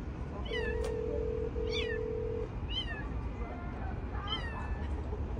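A kitten trapped in a car's engine compartment meowing repeatedly: four high-pitched calls, each falling in pitch. A phone's ringing tone sounds steadily for about two seconds, starting about half a second in.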